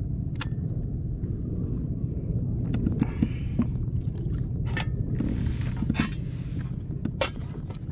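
Sharp clinks and knocks of a metal mess tin and its wire handle being handled, heard about five times, over a steady low rumble.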